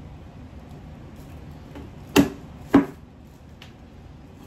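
Two sharp knocks about half a second apart: a hard Jonah crab shell being struck to crack it open, over quiet rustling of shell being picked at.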